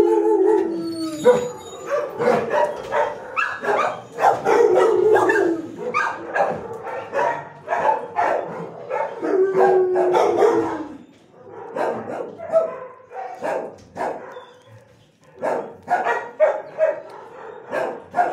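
Dogs in a shelter kennel block barking over and over in a dense, irregular chorus, with a few longer drawn-out cries near the start and about four and nine seconds in.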